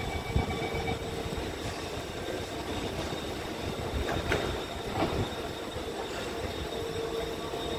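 Alstom Movia R151 metro train standing at the platform with a steady hum while its doors and the platform screen doors close, with two short knocks about four and five seconds in.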